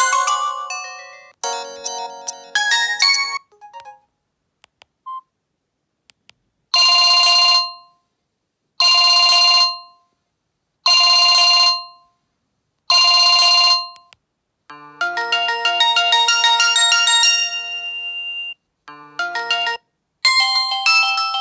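Samsung GT-E1080W phone playing its built-in ringtones one after another: short electronic melodies, a lone short beep, then a telephone-style ring repeated four times about two seconds apart, then more melodies.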